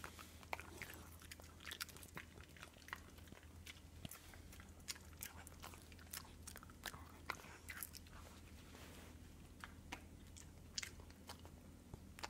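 A dog chewing a beef jerky stick: faint, irregular clicks and crunches of its jaws working the meat.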